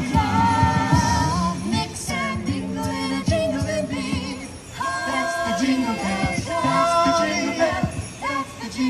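A cappella vocal group singing a holiday mashup in several-part harmony, with a low bass line under held upper voices and short percussive hits keeping a beat.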